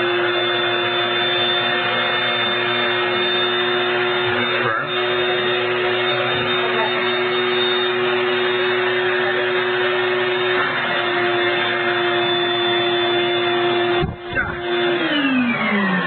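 Vacuum cleaner motor running at full speed as a blower, pushing air through its hose into an air mattress to inflate it, with a steady whine over the rush of air. About fourteen seconds in it drops out for a moment, and near the end it is switched off and winds down, its pitch falling.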